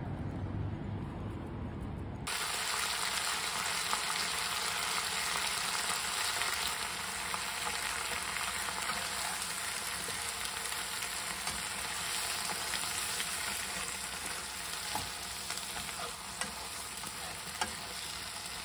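Oysters and cabbage sizzling in butter in a frying pan, stirred with a spatula, with a few light knocks. It starts suddenly about two seconds in, after a low outdoor rumble.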